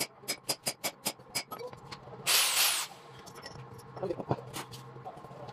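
A steel hand hammer striking a cylinder head in a quick run of blows, about four a second, during valve seat removal; the blows stop after about a second and a half. About two seconds in comes a short, loud hiss lasting half a second, and near four seconds a few light metal clinks.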